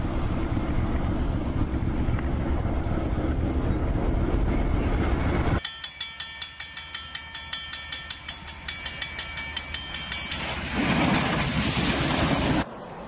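Diesel locomotive ploughing through deep snow, a loud steady rumble. About five and a half seconds in it cuts abruptly to a bell ringing rapidly, about four strokes a second, as a plough train throws snow. Near the end a louder rush of thrown snow takes over, then cuts off.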